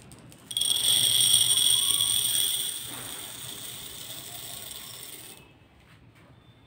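Dry split pigeon peas (toor dal) poured into a ceramic bowl: a dense rattling patter of grains on glazed ceramic that starts suddenly, is loudest at first, then continues more quietly and stops about five seconds in.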